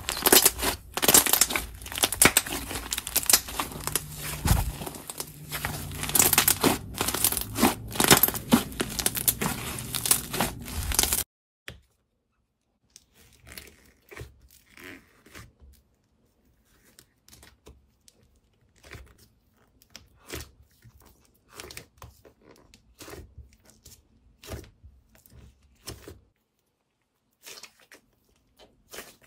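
Hands squeezing and folding stretchy clay slime, with a loud, dense run of sticky pops and clicks. About eleven seconds in it cuts off suddenly and gives way to softer, sparser squishes and pops as fingers poke and knead a soft pink clay.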